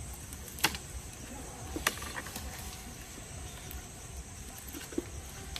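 Bamboo skewers and grilled fish handled on a wooden board: two sharp taps about a second apart, a fainter one near the end, over a low steady rumble.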